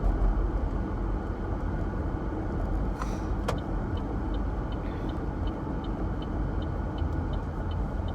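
Steady low car-cabin rumble from the engine and tyres while driving. About halfway through, the turn signal starts ticking at an even pace, about three ticks a second, as the car sets up a U-turn.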